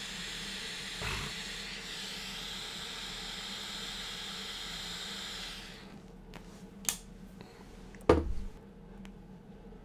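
Butane torch lighter's flame jetting with a steady hiss for nearly six seconds as a cigar is lit, then cutting off. A sharp click comes about a second later, and a thump near the end as the lighter is set down on the table.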